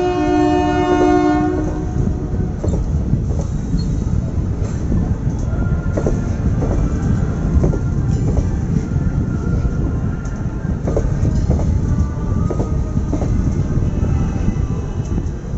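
Train horn sounding and cutting off about a second and a half in, then a passenger train's coaches running past close by: a steady loud rumble with the wheels clacking over the rail joints.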